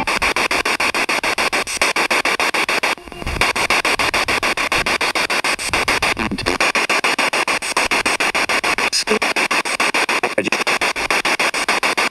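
Ghost box (spirit box) radio scanning through stations: steady loud static chopped into rapid, even steps several times a second, with a brief dip about three seconds in.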